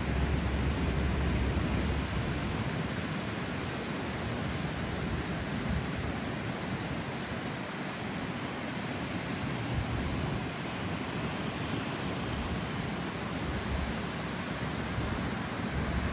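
Typhoon-driven surf breaking on a sandy beach, a steady wash of noise, with a low rumble of wind on the microphone at the start and again near the end.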